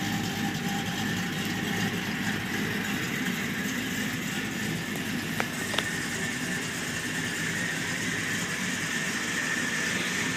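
1991 Ford Bronco's cammed 302 V8 idling steadily through aftermarket headers and a Flowmaster exhaust. Two brief sharp clicks come a little past halfway.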